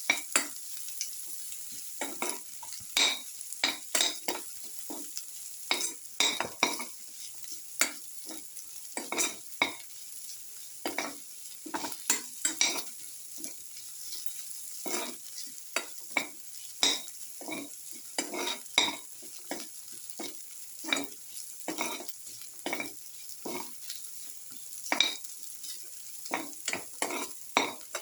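Garlic and shallots sautéing in hot oil in a pan: a steady high sizzle with irregular scrapes, about one or two a second, as a utensil stirs them against the pan.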